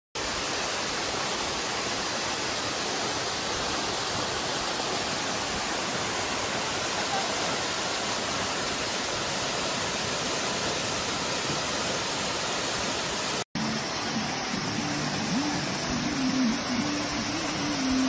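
Waterfall plunging into a pool: a steady, even rush of falling water. It breaks off for a moment about three-quarters of the way through, then carries on with a low wavering hum underneath it.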